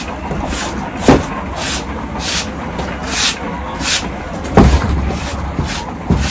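Broom sweeping a floor in quick repeated strokes, each a short swish, with two sharp knocks, about a second in and about four and a half seconds in.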